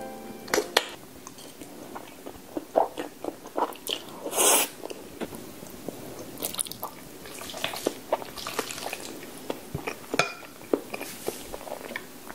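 Close-miked eating of creamy alfredo pasta: chewing with many wet mouth clicks and smacks, and one louder, longer noisy sound about four and a half seconds in.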